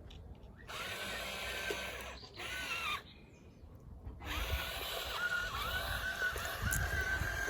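A small electric motor whirring with a wavering pitch. It starts under a second in, stops for about a second midway, then starts again.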